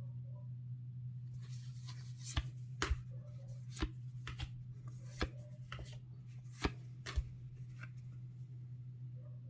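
Trading cards and their packaging being handled, giving a string of sharp taps and clicks (about eight loud ones) from a second and a half in until near the end, over a steady low electrical hum.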